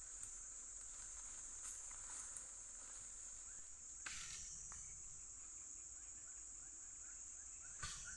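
A steady, high-pitched insect drone of tropical forest, with faint chirps underneath and a couple of soft knocks, one about four seconds in and one near the end.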